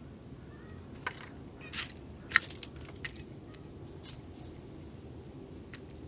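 A bird pecking and cracking seed on a wooden feeder tray: a string of sharp clicks and crunches, about half a dozen, the loudest about two and a half seconds in.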